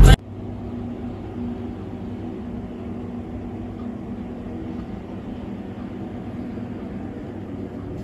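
Steady low hum of indoor room tone, with faint steady low tones and no distinct events.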